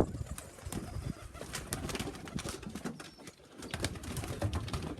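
Domestic pigeons cooing in low tones, with scattered clicks and light knocks and a sharp knock right at the start.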